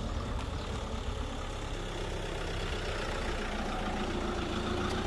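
Motorhome engine idling steadily as the van creeps up to the exit barrier's ticket terminal.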